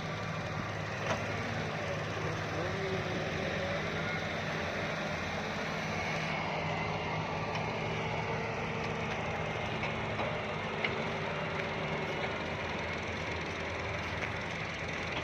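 Diesel engines of a heavy machine running steadily, with a few light clicks and knocks.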